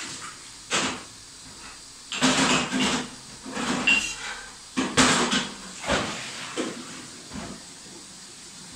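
Several irregular knocks and clattering scrapes over a steady hiss, with the loudest run in the middle.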